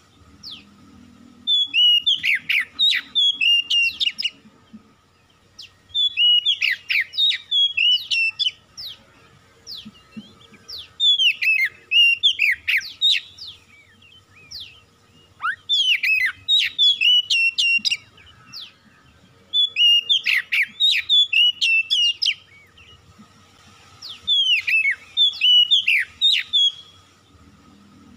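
Oriental magpie-robin (kacer) singing: six loud phrases of quick whistled notes sliding up and down, each two to three seconds long, with short pauses between.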